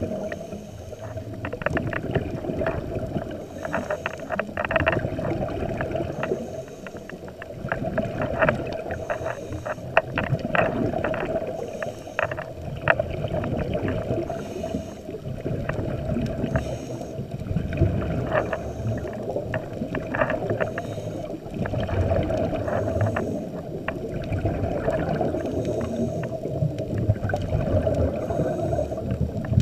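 Scuba diver breathing through a regulator, recorded underwater: a muffled, steady hum with crackling clicks and bubbles from the exhaled air, swelling and easing every few seconds with the breaths.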